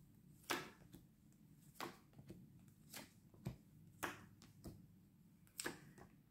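Tarot cards being shuffled and handled by hand: a series of about seven faint, short card flicks and taps at irregular spacing.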